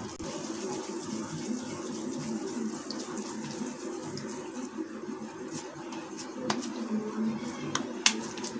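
Oiled hands pressing and shaping a soft mashed potato and grated lotus stem kabab mixture, making a moist squishing, over a steady background hum. A few sharp clicks come in the second half.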